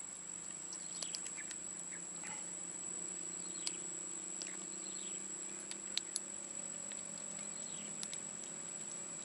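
Insects giving a steady high-pitched drone, with scattered faint clicks and a few short chirps over it.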